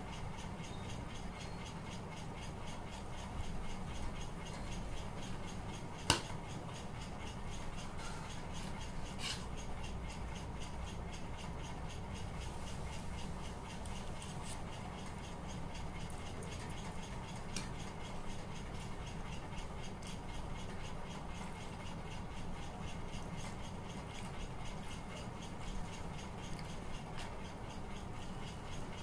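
Steady low room hum with a sharp click about six seconds in and a few fainter clicks later.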